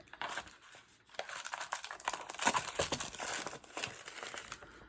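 Cardboard and paper packaging crinkling and rustling in the hands, a dense run of small crackles starting about a second in, as an advent calendar drawer is opened and rummaged through.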